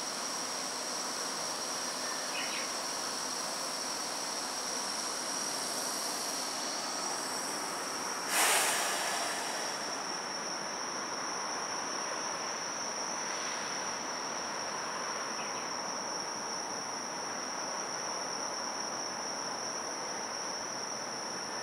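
Insects chirring in a steady, continuous high-pitched drone, with a second, higher drone joining partway through. About eight seconds in comes one short, loud hiss that dies away within a second.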